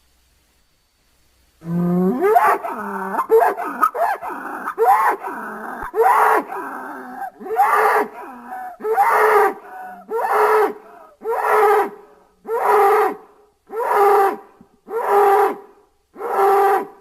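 Bull calling: after a brief silence, a tangle of overlapping calls that bend up and down in pitch, then a regular run of short calls about one a second.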